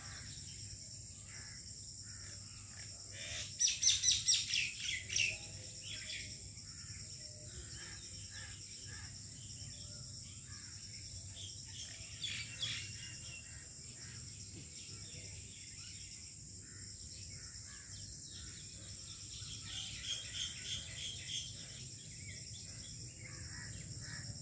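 Small birds chirping in quick runs of calls: the loudest run comes about four seconds in, a short one later, and another run toward the end, over a steady high hiss.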